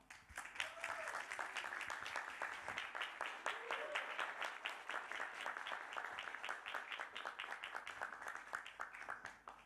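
Audience applauding with dense, steady clapping that dies away near the end.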